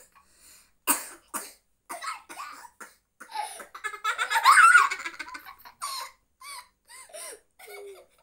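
Young children laughing and giggling in short bursts, loudest about four to five seconds in.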